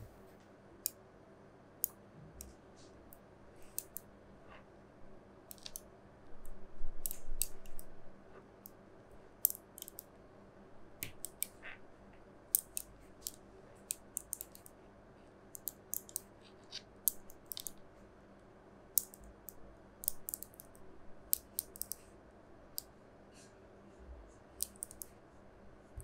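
Small magnetic balls clicking as they snap onto one another, in irregular single clicks. About seven seconds in there is a louder rattle of many clicks.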